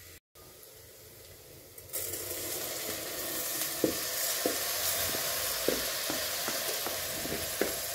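Washed rice hitting hot oil with frying onions and carrots, a sizzle that starts about two seconds in and holds steady. Over it, a wooden spoon knocks and scrapes at irregular intervals as the rice is pushed out of a plastic colander and stirred.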